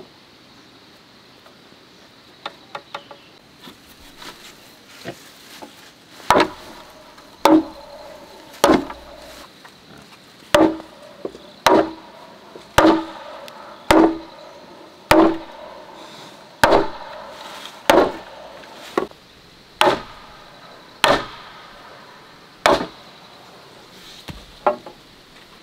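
Wooden mallet pounding a timber crossbeam down onto an upright post. It lands about a dozen heavy wooden blows, roughly one a second, each with a short hollow ring, after a few light taps in the first seconds.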